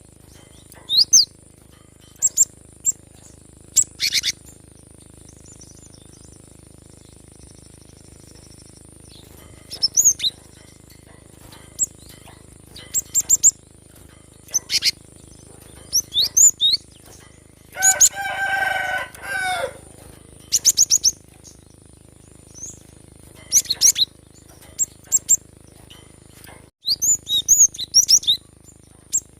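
Cinereous tit (gelatik batu) calling in scattered bursts of sharp, very high chirps and short rapid trills. About two-thirds of the way through comes one longer, lower call with several stacked tones, lasting nearly two seconds.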